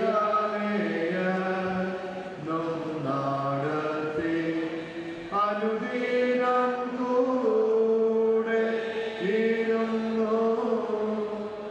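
A group of men's and women's voices singing a slow church chant together, in long held notes that step from one pitch to the next.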